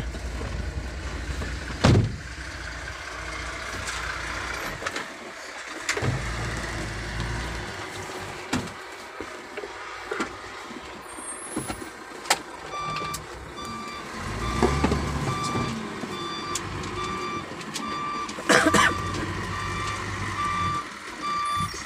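A truck's reversing alarm beeping at an even pace, a little over one beep a second, starting about halfway through, over a low rumble of heavy trucks that comes and goes. A couple of sharp knocks stand out, one early and one near the end.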